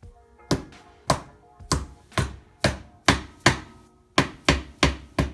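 Plastic mallet tapping a bushing down into place on an outboard motor's water pump, about a dozen sharp knocks at roughly two a second.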